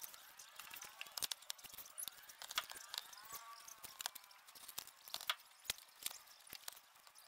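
Faint scattered clicks and light metal taps as a manual transmission is worked by hand into place against the engine, with a few faint squeaks rising and falling near the middle.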